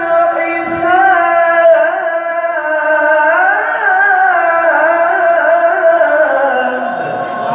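A male Qur'an reciter's voice in melodic tilawah, drawing out a single phrase in one long ornamented line that climbs about halfway through, then falls and ends shortly before the close.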